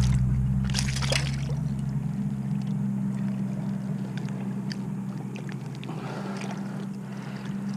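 Small splashes and handling noises as a small northern pike is held in the water and a jig is worked out of its mouth, a couple of sharper splashes about a second in, over a steady low hum.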